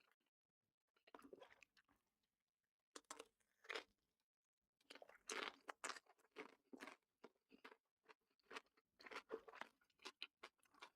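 Close-miked chewing of crunchy food: faint, irregular crunches in short clusters, sparse at first and coming thick and fast from about halfway on.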